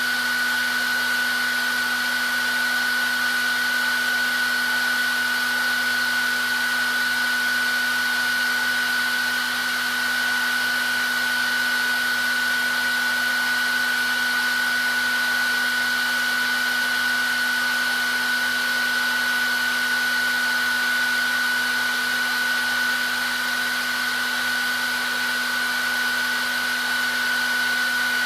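Hair dryer running steadily on one setting: an even rushing of air with a constant high whine from the motor and fan.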